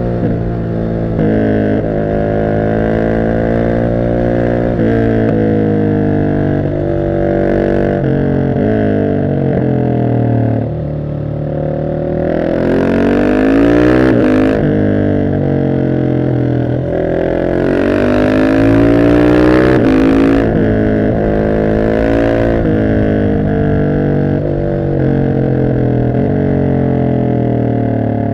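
Husqvarna 701 SM's single-cylinder engine through an Arrow exhaust with the catalyst removed and the dB killer fitted, on the move: the revs rise and fall repeatedly, with two longer pulls to higher revs about halfway and about two-thirds through.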